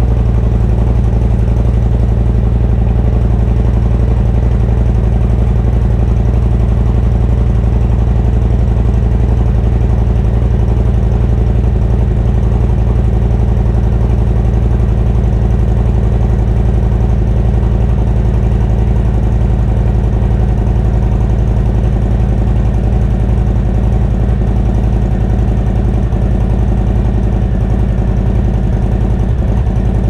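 Harley-Davidson Milwaukee-Eight 117 V-twin idling steadily through freshly fitted TAB Performance 2.25-inch louvered slip-on mufflers with medium baffles.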